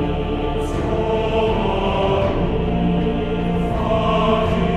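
Background music of held, choir-like voices, moving to new chords every second or two.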